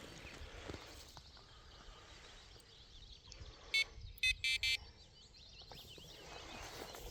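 Electronic bite alarm on a fishing rod beeping four times, one beep then three in quick succession, signalling line being pulled through it. Faint birdsong behind it.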